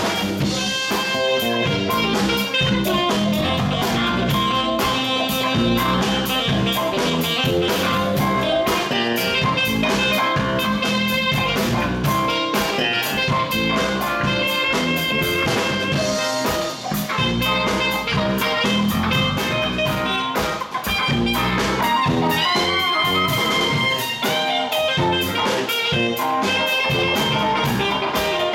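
Live band playing an instrumental passage: electric guitar, saxophone and drum kit.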